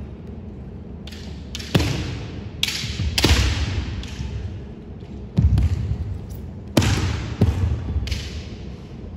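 Kendo bout: about five sharp impacts of bamboo shinai strikes and stamping footwork on a hard floor, each trailed by a loud noisy burst, in a fast exchange of attacks.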